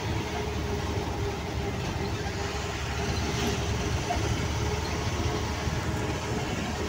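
Steady road and engine noise of a car cruising on a highway, heard from inside the cabin as a low, even rumble.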